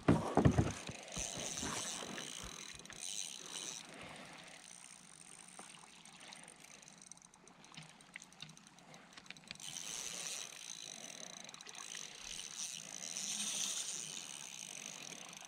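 Spinning reel being cranked while fighting a hooked fish, its gears whirring in two spells, about a second in and again from about ten seconds in. A short loud knock comes right at the start.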